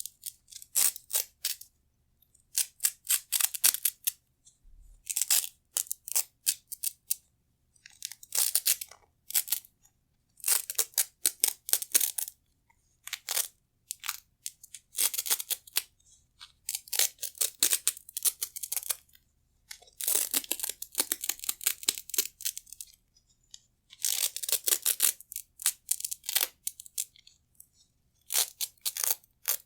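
Velcro (hook-and-loop) straps being ripped apart again and again in short crackly rips, each a second or two long, with pauses between.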